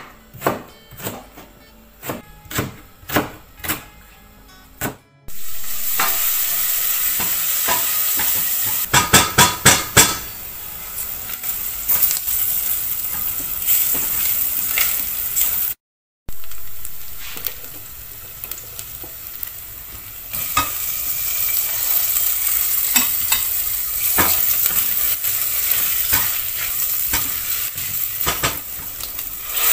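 Food sizzling as it fries in a pan, with a utensil stirring and clinking against the pan now and then. It opens with a run of sharp taps about twice a second, then after a cut the steady sizzle comes in.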